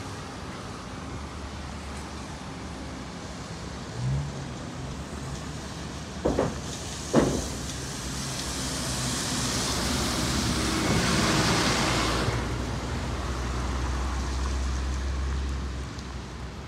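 A NABI 40-LFW city bus passing on a wet street. Its tyre hiss on the wet road swells and fades over about four seconds, with the diesel-type drone of its engine underneath. Two sharp knocks come a second apart shortly before it passes, and a low engine drone from a second bus follows near the end.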